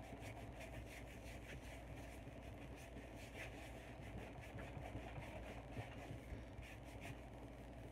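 Faint clicks and scraping of a small plastic tool case being pressed and worked shut by hand, over a steady low hum.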